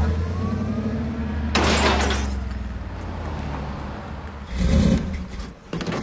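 Film soundtrack of a car engine running with a low, steady rumble that fades out after about four seconds. A loud crash comes about a second and a half in, and a shorter burst of noise comes near the end.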